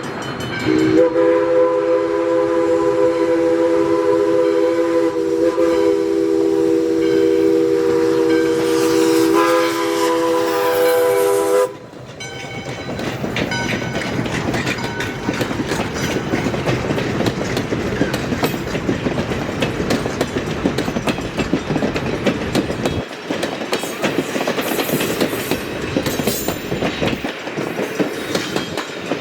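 Steam locomotive's chime whistle sounding one long chord of several notes for about ten seconds, then cutting off sharply. A passing train follows, its wheels rumbling and clicking over the rail joints.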